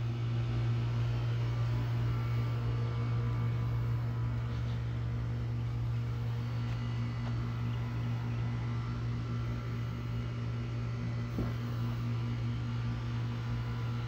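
Portable bandsaw sawmill's engine idling with a steady, even hum. One light knock comes near the end.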